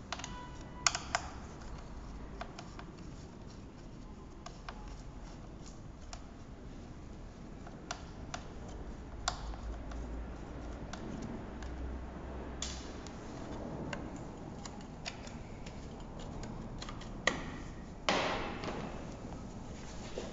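Light, scattered clicks and taps of a hand screwdriver working the screws of an electric scooter's rear plastic corner guards, with the scooter being handled. There is a sharp knock about a second in and another near the end, followed by a brief scraping rustle.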